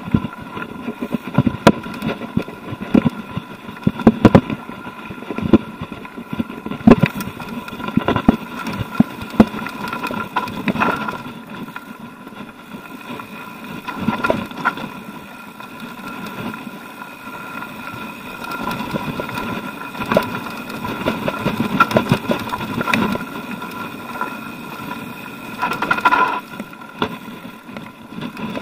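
Orbea Alma hardtail mountain bike rattling and clattering over rocky singletrack, with irregular sharp knocks as the wheels hit stones and bumps, over a steady high-pitched hum.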